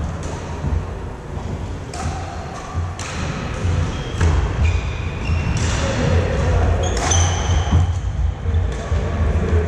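Badminton play in a large hall: several sharp racket-on-shuttlecock hits, with short high-pitched sneaker squeaks on the wooden court floor in the middle, over a steady low rumble.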